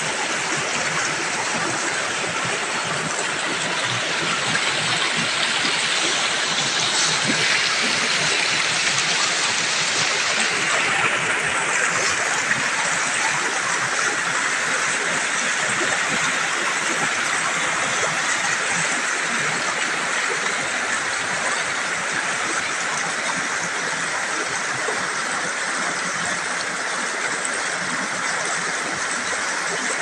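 River water rushing and splashing over boulders in small rapids, a steady hiss-like flow.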